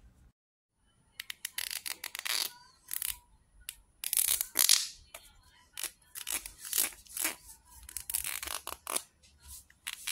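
An irregular series of short, crisp scratching and crackling strokes, starting about a second in.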